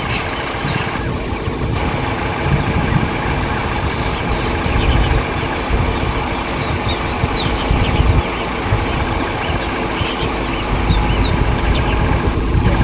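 A vehicle engine idling steadily, with birds chirping over it.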